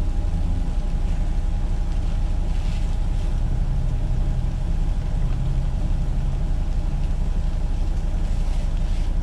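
Parked Freightliner semi truck's diesel engine idling, a steady low drone heard from inside the cab.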